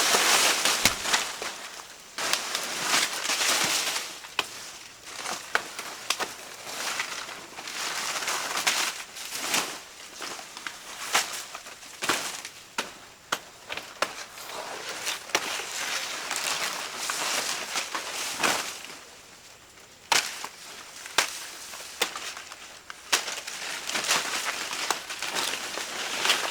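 Irregular crunching and rustling with many sharp snaps and knocks, like plant material being trampled, broken or chopped.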